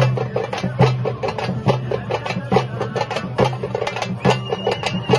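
Traditional drums playing a fast, driving rhythm, with a strong accented beat a little under once a second and quick strokes in between. A high steady tone joins briefly near the end.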